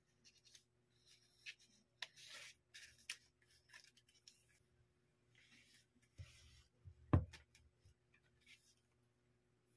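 Unboxing handling sounds: white cardboard packaging, paper sheets and plastic film rustling and sliding under the hands in short scrapes. A soft thump and then a single sharp knock come about six and seven seconds in; the knock is the loudest sound.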